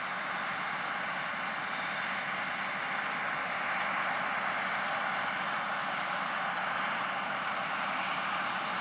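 Tractor and manure spreader running steadily, an even mechanical noise with a faint constant hum underneath and no change in pace.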